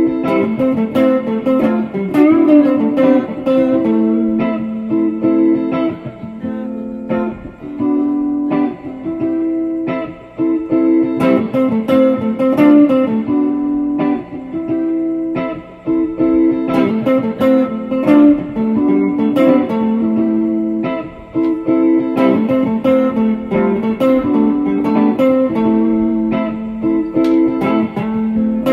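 Guitar music: a single guitar playing a run of plucked notes.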